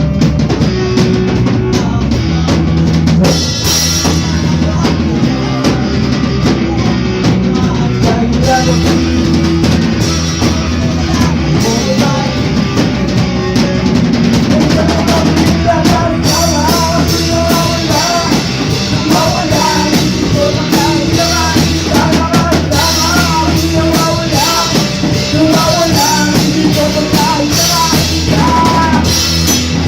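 A band jamming rock music, led by a drum kit with a steady beat under sustained bass notes. About halfway through, a wavering lead melody comes in over it.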